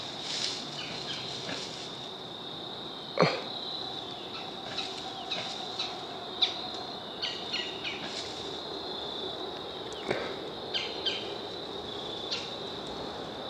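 Steady high trilling of insects in the woods, with scattered sharp crackles and snaps in dry leaf litter. The loudest crackle comes about three seconds in, with others near six and ten seconds.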